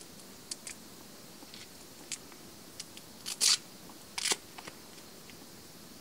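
Hands handling a lapel microphone's cord and its fabric carrying pouch: a scatter of short clicks and rustles, loudest in two quick clusters around the middle.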